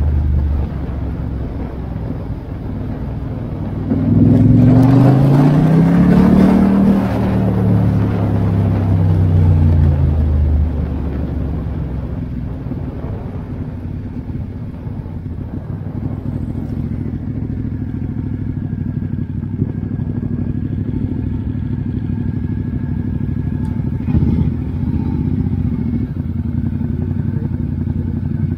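Ducati XDiavel S motorcycle engine running under way. It speeds up a few seconds in, eases off again, then runs at a steady pace.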